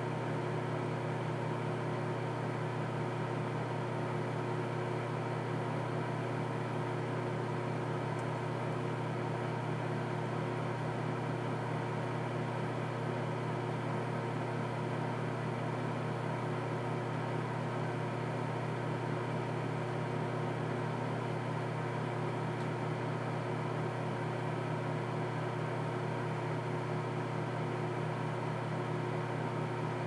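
Rival microwave oven running: a steady low hum with fainter, steady higher tones over it, unchanging throughout.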